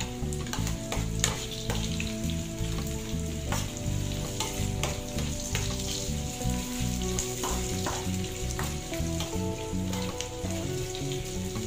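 Garlic, ginger, onion and chili sizzling in hot oil in a frying pan, stirred with a metal spoon that clicks and scrapes against the pan now and then.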